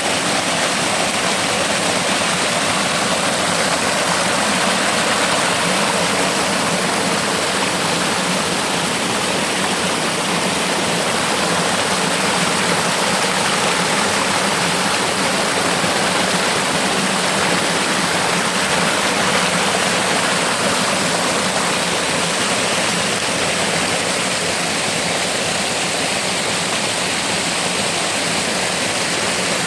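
Rushing water: a loud, steady, unbroken rush.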